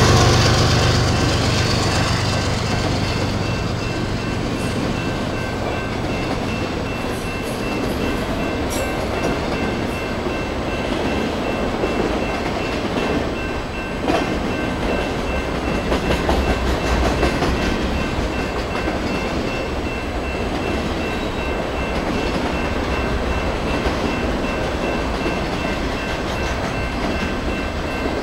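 Empty autorack freight cars rolling past on steel wheels and rail: a steady rolling noise of wheels on track, with faint high ringing tones. The louder locomotive sound dies away over the first couple of seconds.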